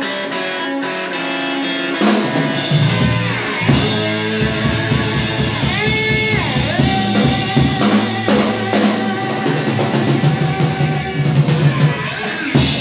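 Live blues band: electric slide guitar with drum kit and bass guitar. About two seconds in, the drums and bass come in hard under the guitar, and the slide guitar glides between notes.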